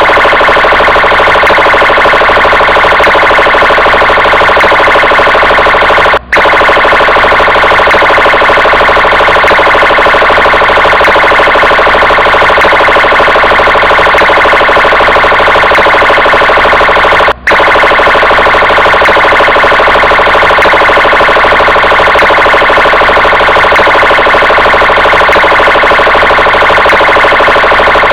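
Police car siren sounding continuously, a loud steady electronic tone that pulses rapidly without rising or falling. It cuts out for an instant twice, about 6 and 17 seconds in.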